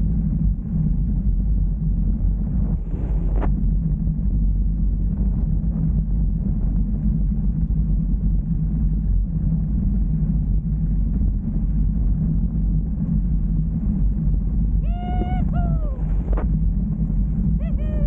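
Wind buffeting an action camera's microphone mounted on a mountain bike's handlebars, mixed with the steady low rumble of the bike rolling down a dirt trail, with a couple of sharp knocks over rough ground. Near the end a short pitched call, falling at its end, sounds twice.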